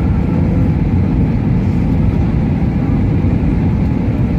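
Steady low rumble of an Airbus A320neo heard inside the passenger cabin in flight: engine and airflow noise.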